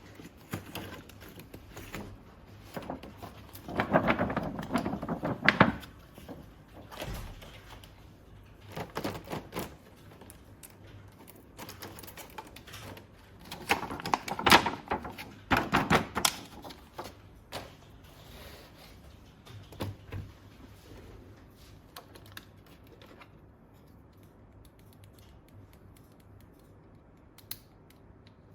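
Hands handling small plastic toy parts: scattered clicks, taps and light knocks, busier twice, about four and fourteen seconds in.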